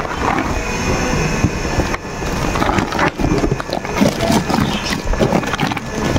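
A plastic bag crinkling and rustling as a bagged raincoat is pushed into a scooter's under-seat storage, with scattered knocks and clatter of handling against the plastic seat compartment.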